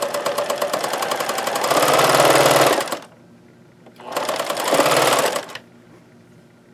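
Electronic sewing machine stitching a zigzag test seam in a scrap of black knit: a fast, even clatter of needle strokes that grows louder about two seconds in and stops near the three-second mark. A second, shorter run follows and stops after about a second and a half.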